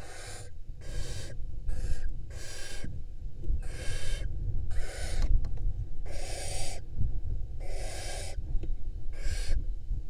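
Barn owls making a run of rasping hisses, about one a second with short gaps between, over a steady low rumble.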